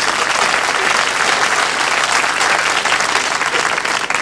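Audience applauding: many hands clapping steadily together, with the two hosts on stage clapping along.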